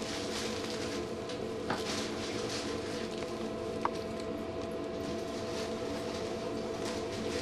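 Steady mechanical hum with a constant tone, over soft rustling of blankets as two-week-old English bulldog puppies crawl. A short click comes about two seconds in and a brief faint squeak about four seconds in.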